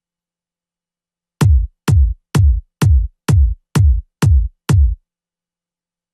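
Electronic kick drum playing eight steady four-on-the-floor beats, about two a second, each a short click falling into a deep thump; it starts about a second and a half in and stops after the eighth hit. Played alone, dry.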